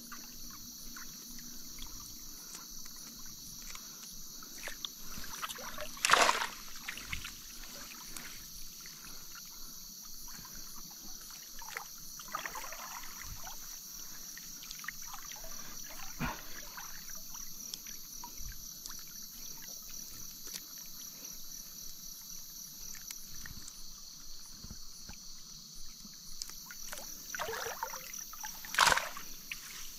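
Water splashing and trickling in a shallow river as a fishing net is worked, with a loud splash about six seconds in and another near the end. A steady, pulsing chirring of insects runs underneath.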